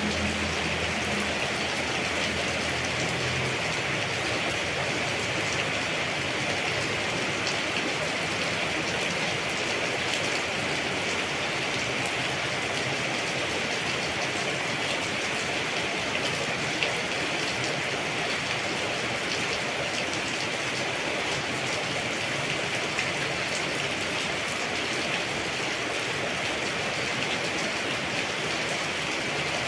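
Steady rainfall: an even hiss with scattered drop ticks. A faint low tone fades out in the first few seconds.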